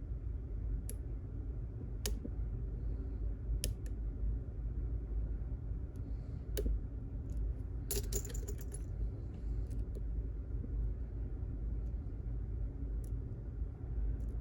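Small metallic clicks and clinks of lock picks and a tension wrench working inside a pin-tumbler lock: a few single clicks spread out, with a brief rattle of several clicks about eight seconds in. A steady low hum lies underneath.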